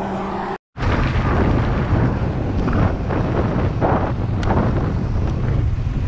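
Wind buffeting the microphone while riding a Kawasaki cruiser motorcycle at road speed, over the steady drone of its engine and tyres. The sound cuts out for a moment just under a second in, then runs on unchanged.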